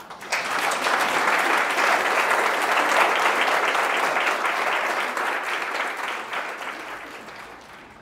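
Audience applauding: dense clapping starts almost at once, holds steady, then dies away over the last two or three seconds.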